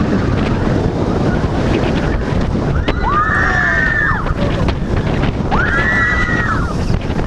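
Wooden roller coaster train running at speed, with wind buffeting the microphone and the rumble of the wheels on the track throughout. Riders scream together twice, about three seconds in and again about five and a half seconds in, each scream rising, held and then falling away.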